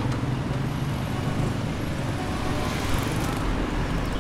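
Street traffic: nearby motor vehicle engines running with a steady low hum over road noise.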